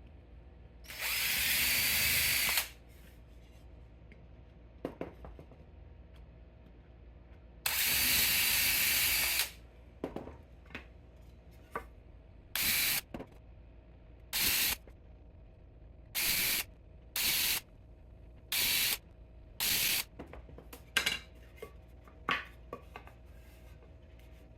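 Power drill drilling dowel holes in wood: two runs of about two seconds each, then six short bursts of the trigger, with light knocks and clicks of handling in between.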